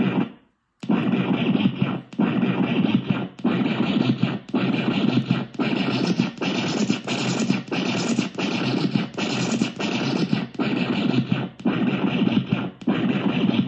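Lo-fi DJ scratch sample looping from a DIY ISD1820 sampler chip. A gritty, noisy scratch phrase repeats about once a second after a short break near the start.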